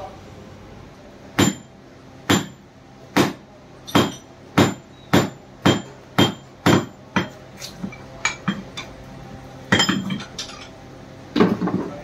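Repeated sharp metal-on-metal knocks on a power steering rack being dismantled. There are about ten evenly spaced blows, roughly two a second, each with a brief metallic ring. Then come a few lighter taps and two heavier knocks near the end.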